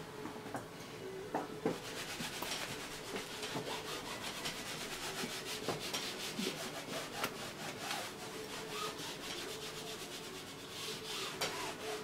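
Palette knife scraping and spreading thick oil paint across a stretched canvas in many quick, short strokes.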